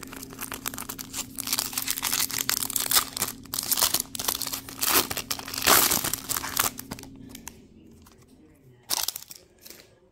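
Foil wrapper of a 2022 Topps Chrome Platinum baseball card pack being torn open and crinkled by hand, a dense crackling that dies away about seven seconds in. One short crackle comes near the end as the cards are handled.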